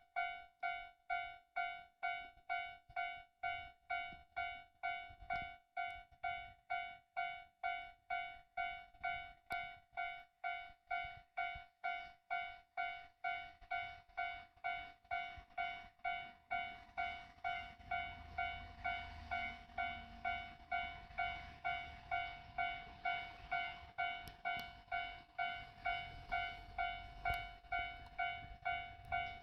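Japanese level-crossing warning bell ringing steadily, about two strokes a second. From about halfway through, a low rumble rises beneath it as a diesel railcar approaches the crossing.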